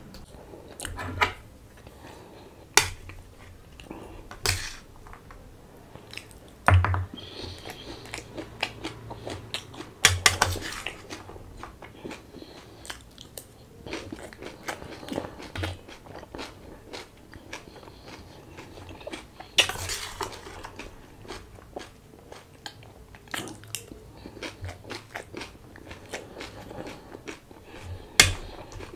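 A person eating: chewing and crunching mouthfuls of food, with a steel spoon clinking and scraping against steel plates in irregular sharp clicks.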